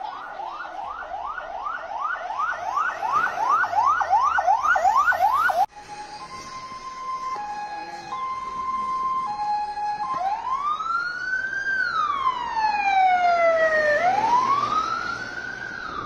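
Fire engine and ambulance sirens in several patterns. First a fast yelp, about three or four rising sweeps a second, growing louder, which cuts off suddenly. Then a two-tone hi-lo alternation, and from about ten seconds in a slow wail that rises and falls twice.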